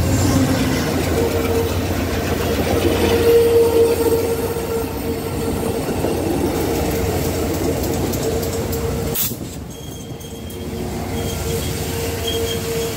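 Amtrak passenger train departing a station and passing close by: the trailing P42DC diesel locomotive and then stainless-steel passenger cars rolling past, with a steady rumble of wheels on rail and a steady ringing tone from the wheels. About nine seconds in the sound drops abruptly, then the cars rolling by are heard again, quieter.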